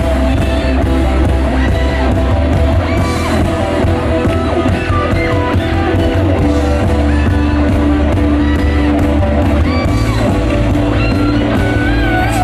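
Live rock band playing with guitars, bass and drums, a singer carrying a melody over them, loud and steady.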